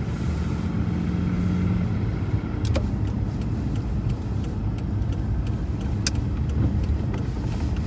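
Car driving slowly on snowy, slippery streets, heard from inside the cabin: a steady low rumble of engine and tyres. A low hum fades out about two seconds in, and two brief sharp clicks come later.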